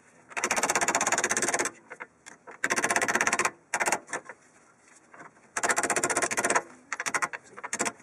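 Ratchet wrench spun in runs of rapid, evenly spaced clicking: three longer runs of about a second each, with short bursts between.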